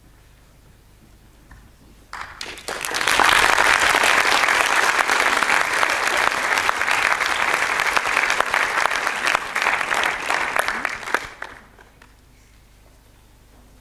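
Theatre audience applauding. The clapping starts about two seconds in, quickly swells to full strength, and dies away after about eleven seconds, as the scene ends in a blackout.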